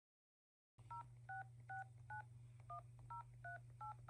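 Phone keypad dialling tones (DTMF): about eight short two-note beeps in quick succession as a number is keyed in, starting about a second in, over a steady low hum.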